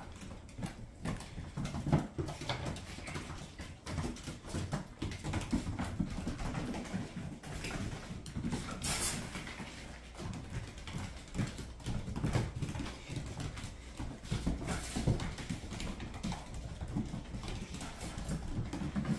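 Puppies' claws and paws scrabbling and clicking on a hardwood floor as they chase and romp, with many quick taps and scuffs. A couple of short, hissy noise bursts stand out, one about halfway through and one later.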